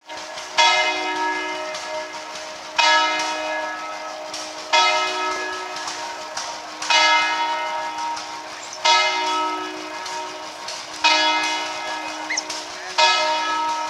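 A church bell tolling slowly, seven strokes about two seconds apart, each struck sharply and ringing on as it fades into the next.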